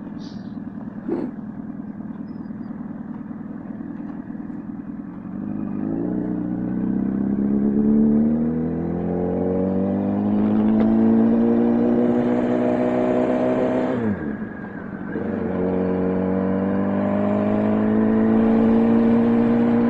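Motorcycle engine pulling away from low speed, its note climbing steadily, dropping sharply at an upshift about fourteen seconds in, then climbing again and settling to a steady cruise.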